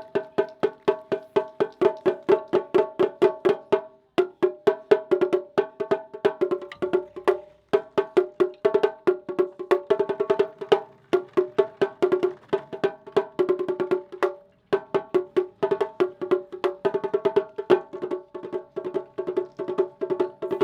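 Taiko ensemble playing rapid woody clicking strikes, about five a second, with no deep drum boom. The strikes come in phrases of about three and a half seconds, separated by brief pauses.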